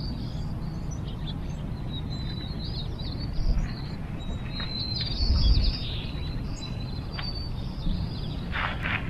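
Small birds chirping and whistling in short, high notes throughout. Under them is a steady low rumble of wind on the microphone, swelling twice in gusts.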